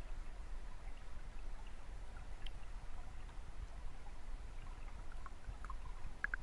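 Flowing river water heard from underwater: a steady, muffled low rumble with scattered small clicks and ticks, more of them near the end.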